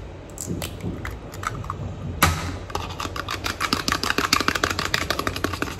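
A fork beating raw eggs in a small plastic bowl: a sharp knock about two seconds in, then a fast, even run of clicks as the fork strikes the bowl.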